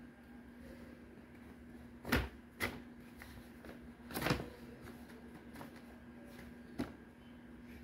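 Paper shopping bag rustling and crinkling in a few short bursts, the longest about four seconds in, as a kitten inside shifts and paws at a plush fish toy pushed against the bag. A faint steady hum runs underneath.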